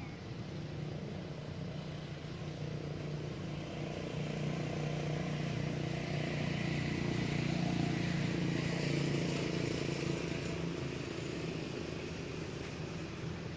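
Engine of a motor vehicle running steadily, growing louder towards the middle and then fading as it passes by.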